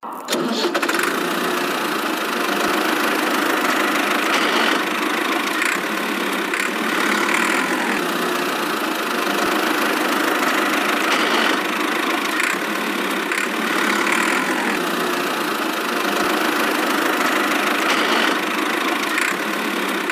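Small motor of a miniature DIY tractor machine running steadily, a continuous whirring hum with no deep low end.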